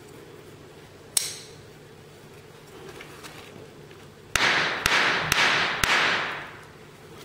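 A folding knife's blade clicks sharply once about a second in as it snaps open and locks. About four seconds in come four hard knocks about half a second apart amid harsh noise, as the knife is struck against a taped wooden board, a spine-whack test of its titanium frame lock.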